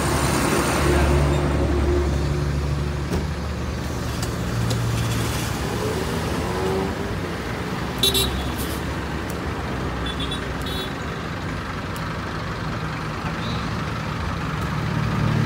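Street traffic: the steady low rumble of passing motor vehicles, among them a bus, louder near the start and again near the end. A sharp short click sounds about eight seconds in.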